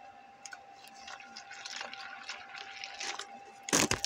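Water poured from a plastic bottle into an MRE beverage powder pouch: a faint trickle that grows as the pouch fills. Near the end comes a brief, louder crinkle of plastic as the pouch is handled.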